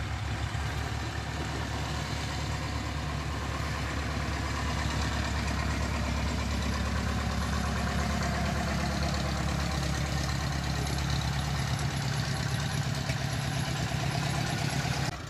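Single-engine light aircraft's piston engine and propeller running at low taxiing power: a steady, low drone.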